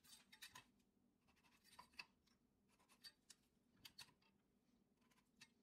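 Faint clicks and short scratches of a steel straightedge and a square being set down and shifted on a cherry wood blank, with a pen drawing lines across the wood. The clicks are scattered and irregular, a few each second.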